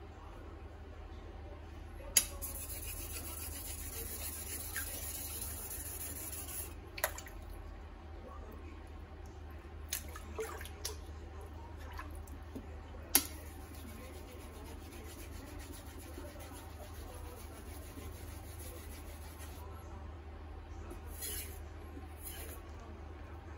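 Edo-style usuba kitchen knife being worked by hand on a wet whetstone, likely while the small edge bevel is put on: soft rubbing strokes and a few sharp clicks of steel on stone. Two stretches of steady high hiss, each several seconds long and each starting with a click, sit over a constant low hum.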